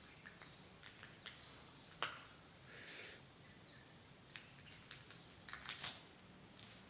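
Faint scattered clicks and crunches of footsteps on debris and broken glass, with a sharper click about two seconds in and a short cluster near the end.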